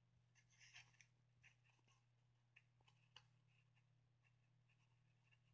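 Near silence, with a few faint rustles and light scrapes of card slices being handled and slid onto a spline, the clearest about half a second in and around three seconds in.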